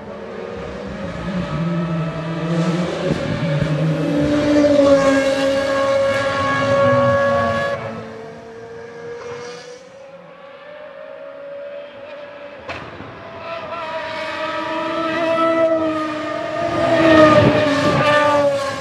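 McLaren-Mercedes Formula 1 car's V10 engine at high revs, pitch rising and falling with throttle and gear changes. It swells loud twice with a quieter stretch in the middle, and there is one sharp click about two thirds of the way through.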